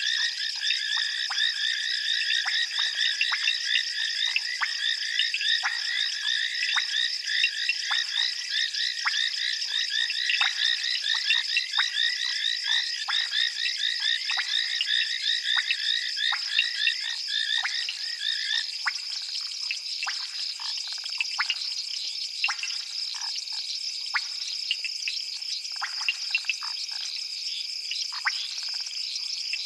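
A dense night chorus of frogs calling at a pond: many rapid, overlapping high-pitched calls. About two-thirds of the way through the lower-pitched calls drop out, leaving a steady high trill with scattered calls.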